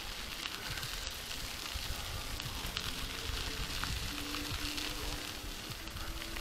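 Mountain-bike tyres rolling over a dirt path, a steady crunchy hiss over a low rumble.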